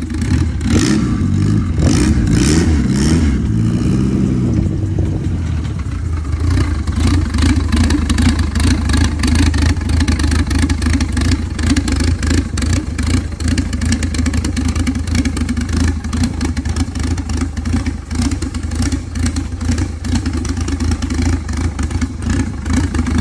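Car engine running loudly, its pitch rising and falling over the first few seconds as it pulls in, then settling into a steady idle.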